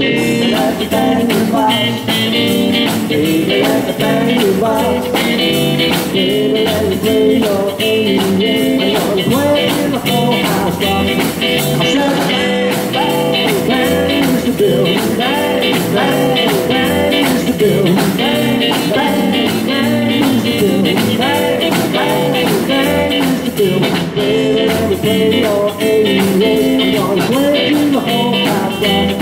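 Rockabilly trio playing live: an electric hollow-body guitar takes an instrumental break over upright double bass and drums keeping a steady beat.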